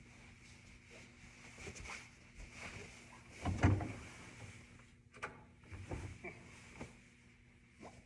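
Knocks, thumps and shuffling of a person moving about and sitting down on a wooden organ bench, the loudest thump about three and a half seconds in, over a faint steady hum.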